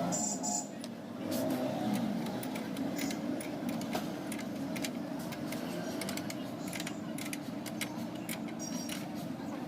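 Spanner clicking and clinking on a motorcycle silencer's mounting nuts as they are tightened: irregular sharp metal clicks over a steady low hum.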